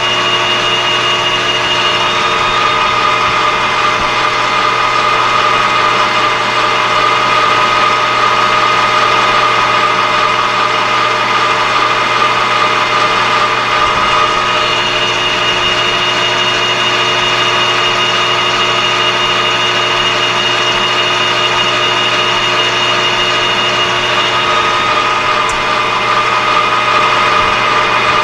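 Metal lathe running steadily while it takes a facing cut across a half-inch plate held in the chuck: a constant machine hum with steady high tones from the cut that shift a little a few times.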